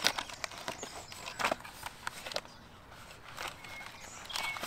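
Cardboard product box being handled and opened: scattered rustles and light taps of paperboard as the box is turned and a booklet is slid out. Faint bird chirps sound now and then.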